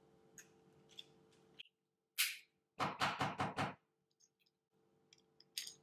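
Plastic Afrezza insulin inhaler being handled and opened to take out the used cartridge: a few light clicks, a short hiss, then a quick run of about six knocks around the middle.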